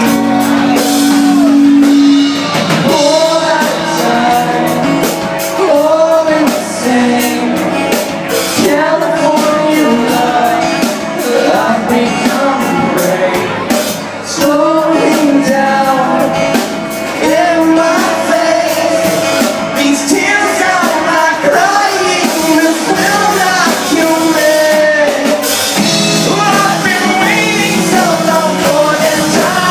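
Live acoustic rock band: a male lead singer singing over acoustic guitar and bass guitar.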